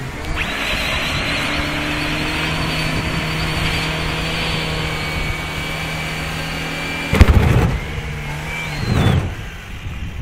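Škoda 1.3-litre four-cylinder engine held at high, steady revs during a burnout, the spinning tyre giving a steady high squeal. About seven seconds in there is a single sharp bang, then a brief rev rises and falls and the engine eases off near the end.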